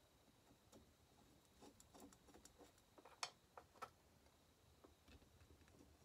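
Faint, scattered clicks and light taps of small metal parts and screws being handled and fitted onto a chainsaw engine by hand. The two sharpest clicks come a little over three seconds in and just under four seconds in.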